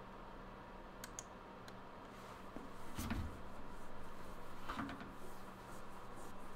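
Computer mouse clicking twice in quick succession about a second in, then a soft thump about three seconds in and another near five seconds, over a faint steady hum.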